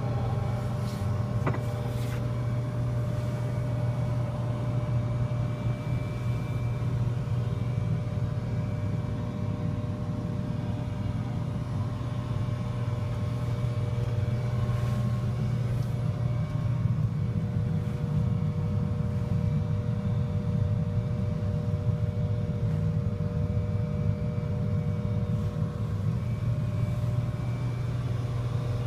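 Caterpillar 950 wheel loader's diesel engine running steadily, heard from inside the cab as a constant low hum with a steady higher whine above it.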